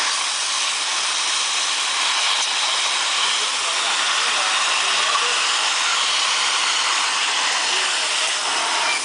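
Tarp hemming welder running with a steady, even hiss, easing off slightly right at the end.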